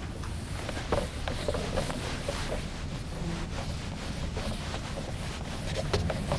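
Whiteboard eraser rubbing across a whiteboard, soft wiping with scattered light taps, over a steady low hum.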